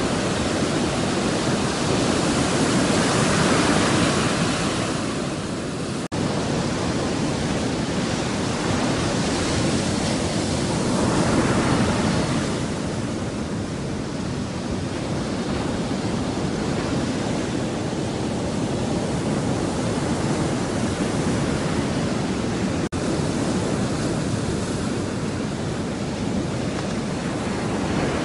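Surf washing on a beach: a steady roar of waves that swells about three seconds in and again around eleven seconds, then eases. The sound cuts out for an instant twice.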